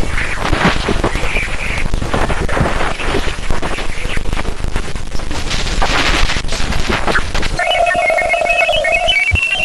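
Sonified space recording: a dense electronic crackle of rapid clicks. Some seven seconds in it gives way to a steady mid tone and a quick run of high beeps that climb slightly in pitch.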